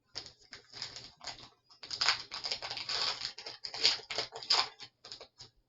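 Crinkling and rustling of a Pokemon booster pack's foil wrapper being handled and torn open: a quick run of crackly rustles, busiest in the middle.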